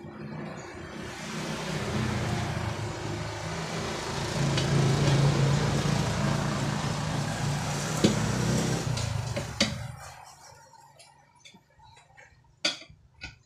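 A motor vehicle's engine and road noise swelling and then fading away as it passes. Near the end come a few sharp clicks and knocks from the tyre and rim being handled.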